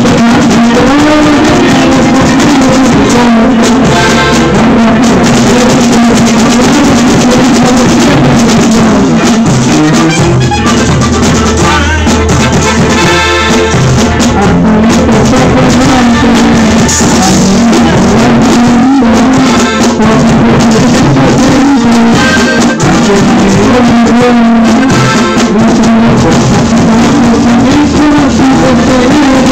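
Live Latin American band music played loud: button accordion, bass, guitar and drums, with a voice singing into a microphone.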